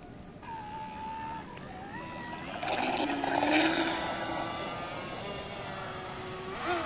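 Tenshock brushless electric motor of a Mono 1 X-15 RC racing boat on a 3S LiPo whining, its pitch stepping up as the throttle opens. About two and a half seconds in the boat surges away with a loud rush of propeller spray and water, the high motor whine carrying on as it speeds off.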